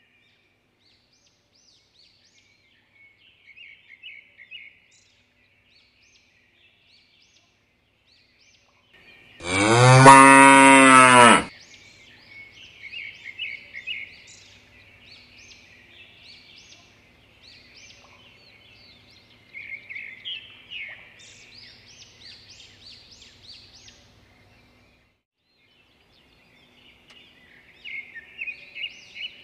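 A cow mooing once, one long call about ten seconds in. Faint, scattered bird chirping sounds behind it.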